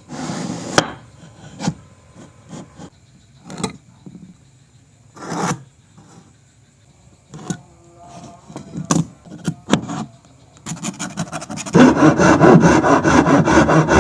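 Scattered knocks and short scrapes, then, about eleven seconds in, a fast, steady rasping begins and grows louder.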